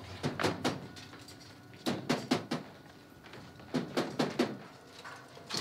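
Knocking on a door: three rounds of about four quick knocks, each round a couple of seconds after the last.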